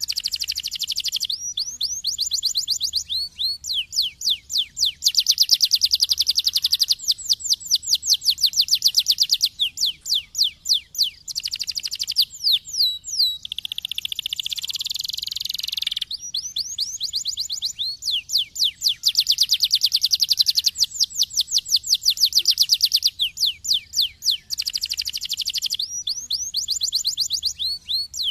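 Domestic canary singing a long, unbroken song of rapid trills, each phrase a run of quickly repeated notes before switching to the next, with a harsher buzzy passage about halfway through.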